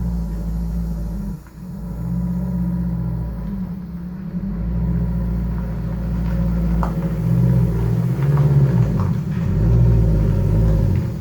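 A 2004 Nissan Sentra Spec V's four-cylinder engine running and revving unevenly, dropping off sharply near the end. It is an engine that, by the owner's account, makes very little power and smokes heavily.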